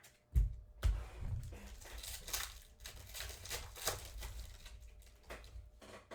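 Two thumps, then a foil trading-card pack crinkling and tearing as it is opened and the cards are handled.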